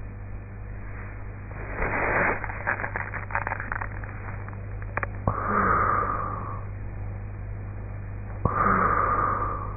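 A sleeping woman snoring through a half-open mouth. There is a rough, crackly breath about two seconds in, then two snores about three seconds apart, each starting abruptly and lasting about a second. A steady low hum runs underneath.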